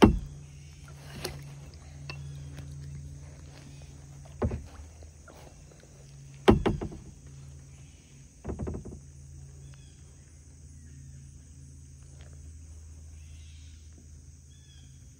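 Outdoor ambience: a steady high-pitched insect drone and a low hum, broken by four short knocks, the loudest about six and a half seconds in.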